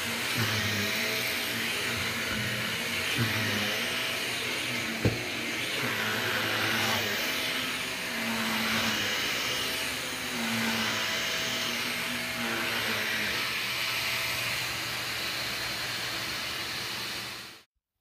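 Cordless stick vacuum running on carpet, its suction noise swelling and easing every couple of seconds as the head is worked over the pile. A single sharp click about five seconds in, and the sound cuts off abruptly near the end.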